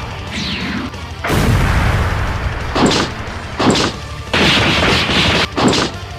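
Anime-style fight sound effects. A falling whoosh comes first, then a long rushing blast with a heavy low rumble about a second in. After that come sharp punch impacts and more bursts of rushing blast noise.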